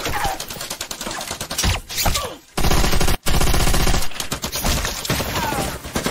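Rapid automatic gunfire in a film firefight: many shots in quick succession, heaviest and loudest from about two and a half to four seconds in, with two brief falling whistling tones.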